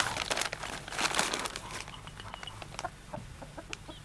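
Plastic sheeting crinkling loudly under a dog as it tramples and settles onto it, for about the first two seconds. After that come a few short clucks from a rooster and light rustles.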